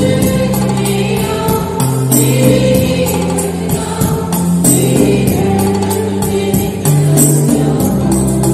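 A church choir of men's voices sings a hymn together into microphones, amplified through loudspeakers. Under the voices runs a steady beat of sharp, high percussion.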